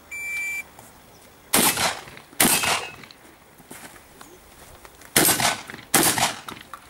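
A shot timer's start beep lasting about half a second, then four shotgun shots in two pairs: two less than a second apart about a second and a half in, and two more near the end.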